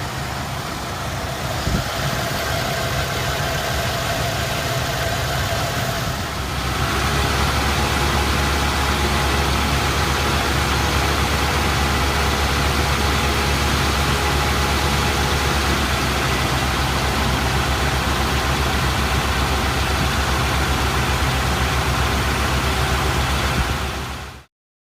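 1989 Lincoln Town Car's fuel-injected 5.0 L V8 idling steadily with the misfire its owner is trying to diagnose: it persists despite a new cap, rotor, plugs, wires and coil, and all cylinders passed a balance test. The engine grows louder and deeper about six seconds in.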